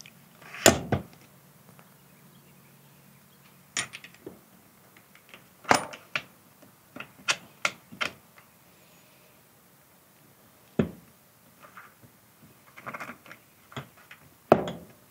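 Irregular light metallic clicks and taps, about a dozen, as the split half-moon spring retainer pieces are worked into the lower spring seat of a Suzuki LTZ400 shock absorber.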